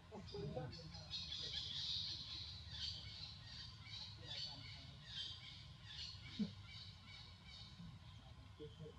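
Monkey crying in quick, repeated high-pitched squeals, most intense in the first half, over a low steady hum. A short sharp knock sounds about six and a half seconds in.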